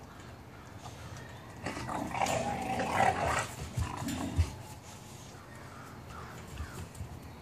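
Puppies growling during rough play, a stretch of about three seconds starting near two seconds in, with a couple of dull thumps near its end.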